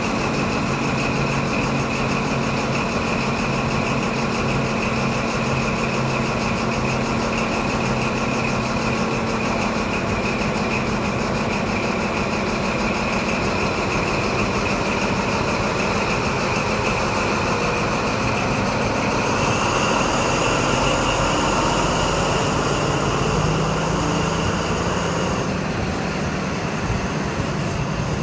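Diesel engine of a Class 43 HST power car running with a steady high whine over a low engine note. About two-thirds of the way through it opens up as the train pulls away, and the whine rises in pitch and grows louder.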